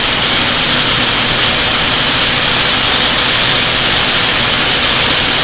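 Chicken drumsticks frying in a pan of hot grease: a loud, steady sizzle.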